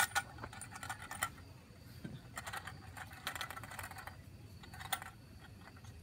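Coins clinking and rattling in a small handheld cup, in scattered flurries of light metallic clicks.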